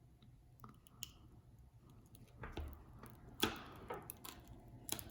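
Light clicks and taps of small repair tools working on an opened iPhone 8, with a few sharper clicks in the second half.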